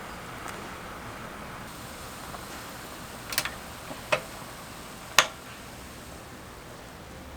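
Three sharp clicks or knocks, roughly a second apart, the last one the loudest, over a steady low hiss.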